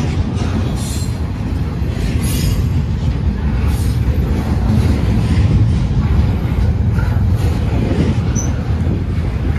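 Double-stack intermodal freight train's well cars rolling past close by: a steady heavy rumble of steel wheels on rail, with brief high wheel squeals a few times in the first half.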